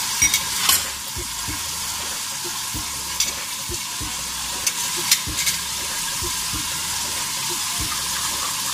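Oil sizzling steadily in a pan as onion and garlic-ginger paste fry, with a few light spoon clinks.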